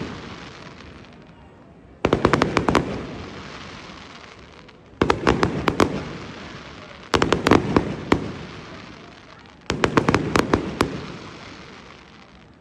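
Fireworks display: four salvos about two to three seconds apart. Each is a sudden bang followed by a quick run of crackling pops that echoes and fades away.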